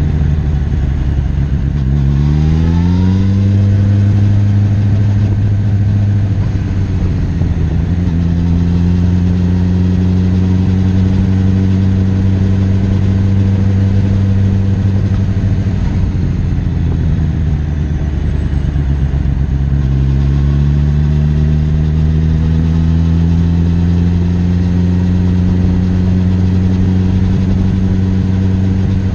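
Suzuki GSX-S1000F's inline-four engine running at low revs while the bike moves slowly. It rises in pitch as the throttle is opened about two seconds in, eases back, and rises again about twenty seconds in.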